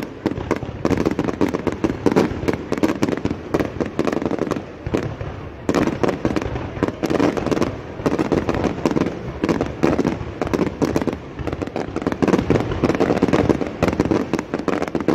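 Fireworks going off in quick succession, a dense run of cracks and pops that thins for a moment about a third of the way through, then picks up again.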